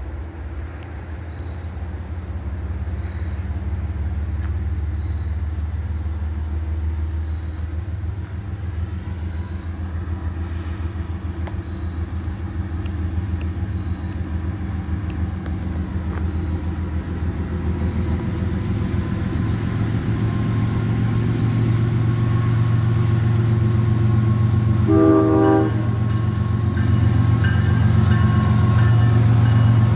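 Diesel freight locomotives approaching, their low engine drone growing steadily louder as they come closer. A short horn blast sounds near the end.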